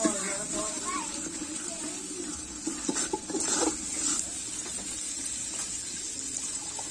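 Metal ladle stirring a pot of bubbling chicken curry over a wood fire, with a steady sizzle from the pot. About three to four seconds in, the ladle knocks and scrapes against the metal pot several times.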